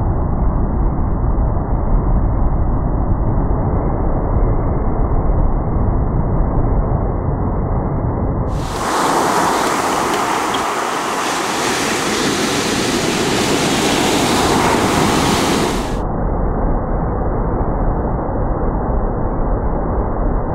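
Ocean surf breaking and washing up a sandy beach, a steady rush of noise with a deep rumble. About eight seconds in it turns brighter and hissier, without the rumble, for some seven seconds, then goes back to the duller rumble.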